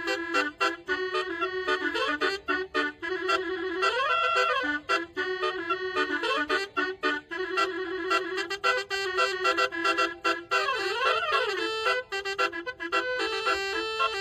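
Basuri multi-tone bus horn playing a fast melody of quick, clipped notes. The pitch swoops up and back down about four seconds in, and again about eleven seconds in.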